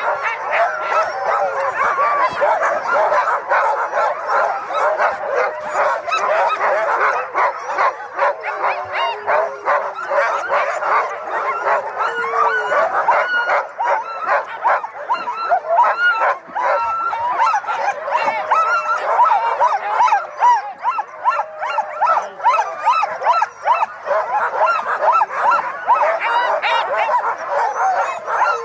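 A large pack of sled dogs barking, yipping, whining and howling all at once without letup: the excited clamour of sled dogs being harnessed, eager to run.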